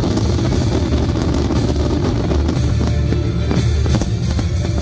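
Loud music with a steady drum-kit beat and heavy bass drum.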